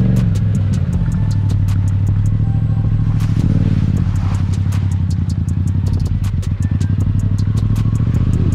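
Yamaha FZ-07's 689 cc parallel-twin engine running at low, fairly steady revs as the bike rides a rough dirt trail, with frequent sharp clicks and rattles.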